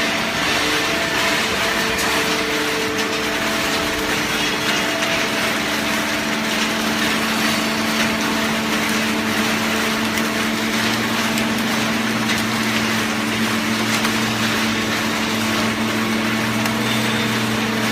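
Hydraulic waste-paper baler running: a steady machine hum over loud, even mechanical noise, with a deeper hum tone joining about eleven seconds in.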